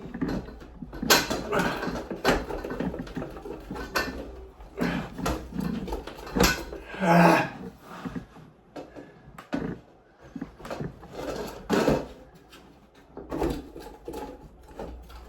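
Repeated knocks, scrapes and rattles of a ceiling fan's housing being worked loose from its ceiling mount, with a short pitched sound about seven seconds in.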